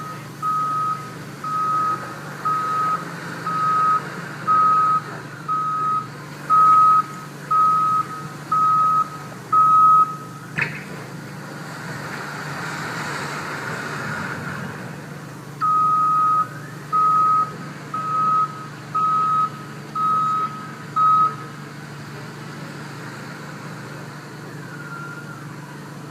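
Backhoe's reverse alarm beeping about once a second over the low drone of its diesel engine. The beeping stops for a while after a sharp knock about ten seconds in, then resumes for about six beeps.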